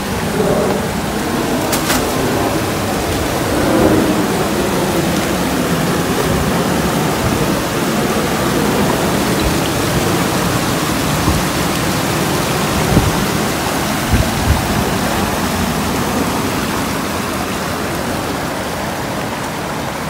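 Steady rushing of a rocky mountain stream pouring over small cascades into a pool, with a couple of brief thumps about two-thirds of the way through.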